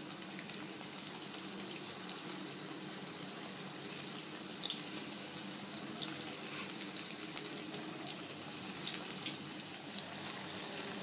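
Gram-flour-battered potato slices deep-frying in hot oil in a wok, a steady sizzle and crackle with a few sharp ticks here and there.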